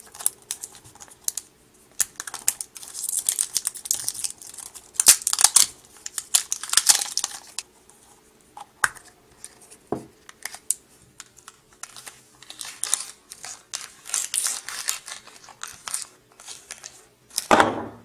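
Thin plastic packaging of a toy surprise-egg capsule being peeled and crinkled by hand, in irregular bursts of crackling and tearing with short quiet gaps. There is a sharper click about ten seconds in.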